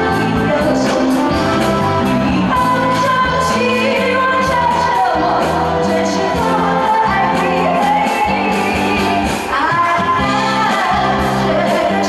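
A woman singing a slow pop song into a microphone over a live band's accompaniment, her voice gliding and holding long notes above a steady bass line.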